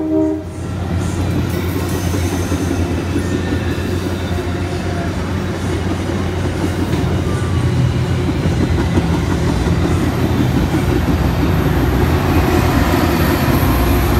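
Metra commuter train of bilevel gallery coaches passing close by: a steady rumble of wheels on rail with clickety-clack, growing louder toward the end as the diesel locomotive at the rear comes past. A brief loud tone cuts off right at the start.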